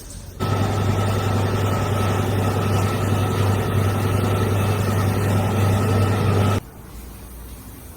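Tractor diesel engine running steadily at idle with a deep, even drone; it cuts in suddenly just under half a second in and cuts off abruptly about six and a half seconds in.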